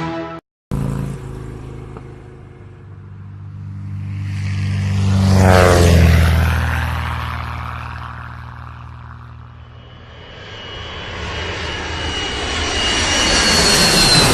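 An engine passes close by: its sound builds, drops sharply in pitch as it passes about five to six seconds in, then fades. A second pass builds up near the end.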